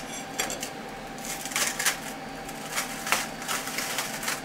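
Hands working a freshly printed plastic part on a 3D printer bed, making irregular clicks, taps and scrapes of plastic several times a second. A steady low hum runs underneath.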